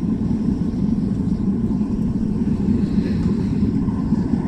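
Metal-melting furnace burner roaring steadily with the lid on, a constant low rumble as it heats up.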